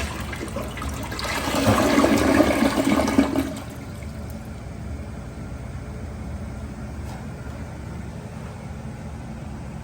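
Glacier Bay toilet flushing: a loud rush of water that cuts off about three and a half seconds in, followed by a quieter steady hiss.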